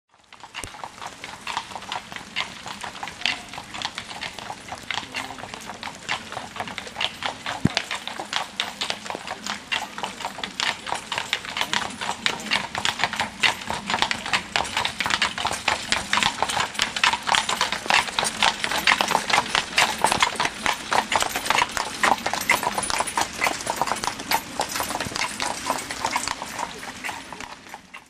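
Hooves of a pair of carriage horses clip-clopping on a wet paved road, a quick, dense patter of strikes that is louder around the middle.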